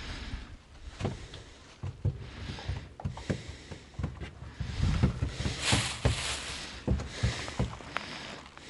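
Handling noise on a head-worn camera's microphone: irregular rumbling bumps and rustles with several sharp knocks, and a louder hiss about five to six seconds in.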